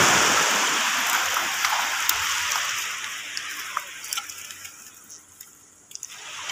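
Shallow seawater splashing and running off a fine mesh fishing net, loud at first and dying away to scattered drips about five seconds in.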